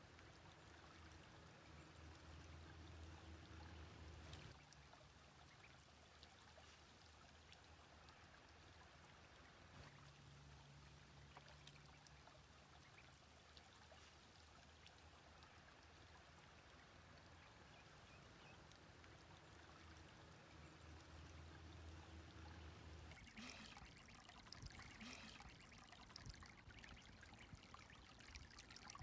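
Faint trickling of a shallow stream running over rocks. About three-quarters of the way through, closer splashing and dabbling of ducklings paddling and dipping in the water joins in.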